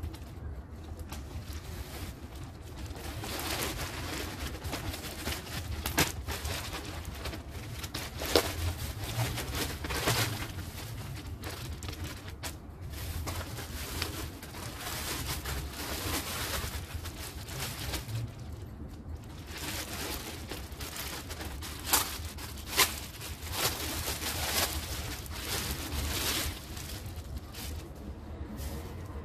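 A plastic mailer bag and bubble wrap rustle and crinkle in waves as they are handled and unwrapped. A few sharp clicks stand out, twice near the middle and twice later on.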